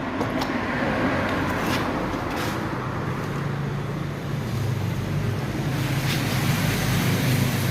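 Vehicle engine running steadily amid traffic noise.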